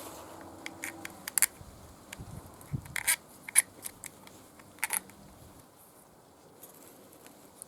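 Irregular clicks, taps and light scrapes of small parts and hand tools being handled, thickest in the first five seconds, with the loudest click about three and a half seconds in.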